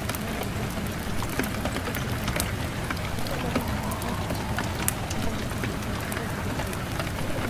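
Steady rain sound: an even hiss with scattered sharp drop clicks.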